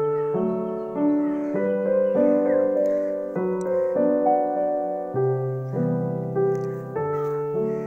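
Background music: soft piano notes and chords, changing about every half second to second.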